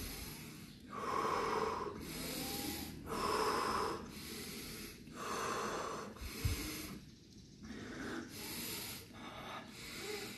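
Deep, forceful Wim Hof method breathing through the open mouth, a full inhale and a let-go exhale repeating about every two seconds during a round of power breaths. A short low bump about six and a half seconds in.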